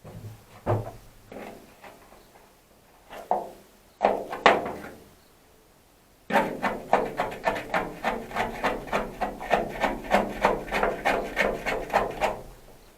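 A few scattered knocks, then a fast, even run of strokes, about four a second, lasting about six seconds, over a low steady hum.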